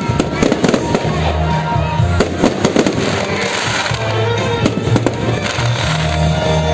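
Fireworks banging in rapid, irregular succession over loud music played through the show's speakers; the bangs are thickest in the first three seconds and thin out after that.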